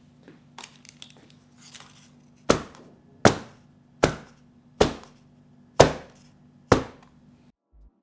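A metal baking pan full of cake batter is knocked down on the counter six times, about once a second, each knock with a short metallic ring, to bring air bubbles out of the batter. Light handling clicks come before the knocks.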